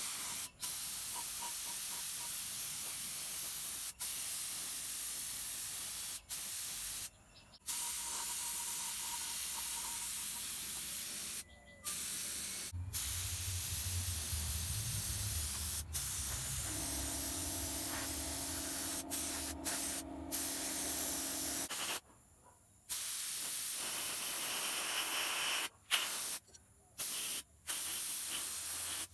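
Compressed-air sandblasting gun hissing in long steady bursts on a rusty cast-iron hydraulic jack body, cutting out and restarting a dozen or so times. A steady hum joins in for about five seconds a little past the middle.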